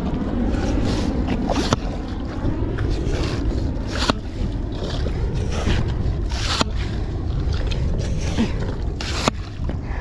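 Steady wind rumble on the microphone, with intermittent wet splashes and sharp clicks from a bait pump working the tidal mud for ghost shrimp.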